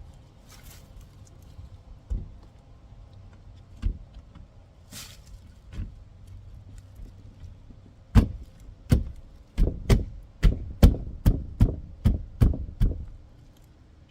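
Window frame being pressed and knocked into a silicone-bedded opening by hand: a few scattered knocks, then a run of about ten firm knocks, roughly two a second, as it is pushed home.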